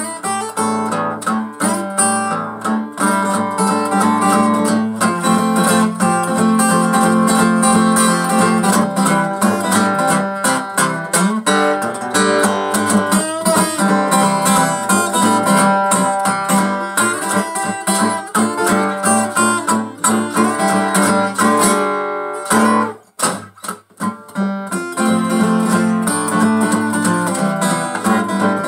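Takamine EF360STT acoustic guitar, its sides cracked, played as a blues instrumental with strummed chords and picked notes; the playing breaks off briefly about 23 seconds in, then picks up again.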